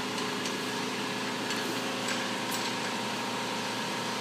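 Steady machine hum at an even level, with a few faint short clicks in the first couple of seconds.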